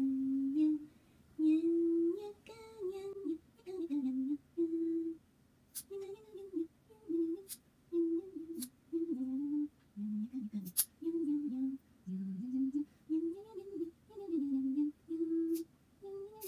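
A woman hums a short, bouncy tune in repeated phrases, a little song about cutting the cat's claws. About five sharp clicks of a small nail clipper snipping the cat's claws come through it, spaced a second or more apart.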